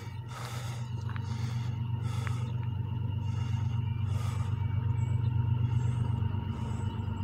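Diesel locomotives of an approaching CSX freight train, a low steady engine rumble that slowly grows louder as they come closer.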